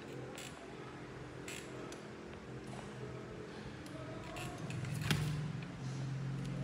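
Light plastic clicks and taps from a baby swing's mobile arm being handled, with one sharper click about five seconds in, over a steady low hum.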